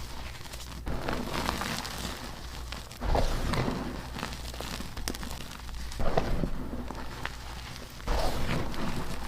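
Dyed gym chalk crunching and crumbling: a sharp crunch about every three seconds, each followed by softer crackling crumble.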